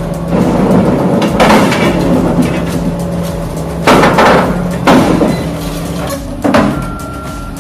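Heavy machinery working material: about five loud crashes and bangs, spread a second or so apart, over a steady low machine hum.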